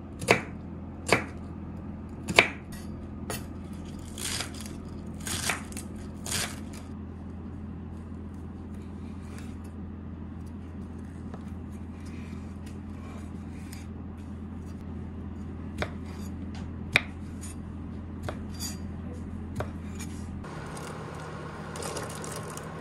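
Kitchen knife chopping an onion on a thick wooden chopping board: a run of sharp knocks in the first several seconds, then only a few single cuts as a sausage is sliced. Near the end, water boiling in a steel pot as diced vegetables drop in. A steady low hum lies underneath.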